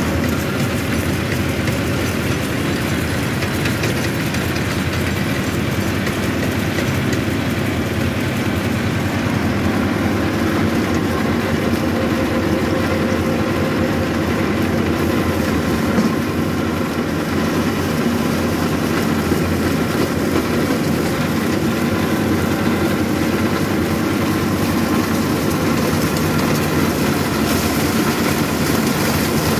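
Arjun Novo 755 tractor's diesel engine running steadily under load, driving a rear-mounted rotavator that churns through soil and stubble.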